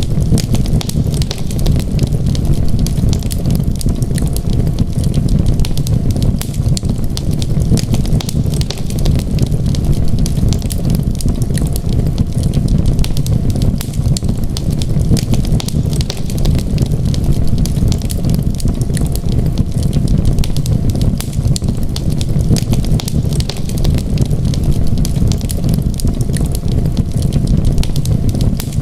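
Fireplace wood fire crackling, with many small pops over a steady low rumble.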